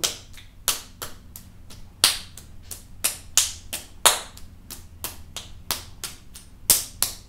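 A lump of soft clay slapped and banged between the palms while being twisted into a rounded, pointed form: sharp, irregular slaps about once or twice a second.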